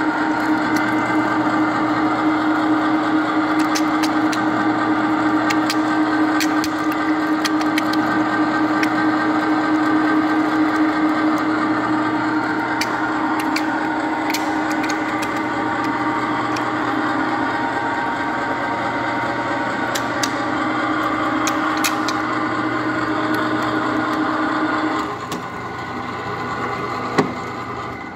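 RIDGID 535 threading machine running, its die head cutting a thread on a solid steel bar: a steady motor drone with scattered sharp clicks. About 25 seconds in the steady running note drops away, leaving a fainter sound and a few clicks near the end.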